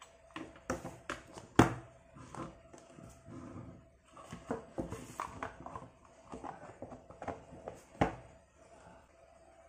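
Plastic switch-and-socket plates being handled and pressed into their plastic board box: scattered scrapes and clicks, with two sharper knocks, one about a second and a half in and one near the end.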